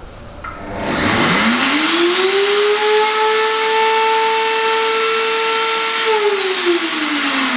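DNA Super Blender's 3 HP commercial motor running with an empty jug. It spins up about a second in with a rising whine, holds a steady high whine, then slows with a falling whine near the end.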